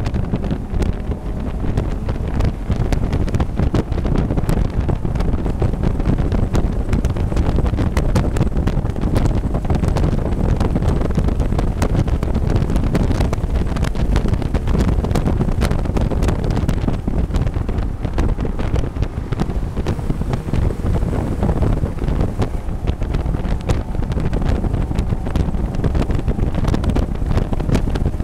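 In-car sound of a Mazda MX-5 race car at racing speed: the engine running under changing throttle, buried in heavy wind buffeting on the microphone, with many sharp rattling clicks throughout.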